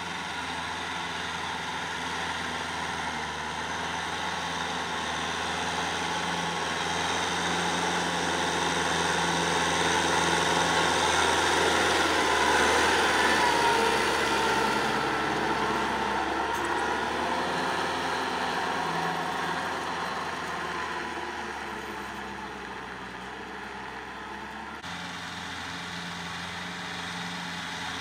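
Kubota M6040 tractor's four-cylinder diesel engine running steadily while it drives a rear rotary tiller through the soil. It grows louder as the tractor passes close about halfway through, then fades.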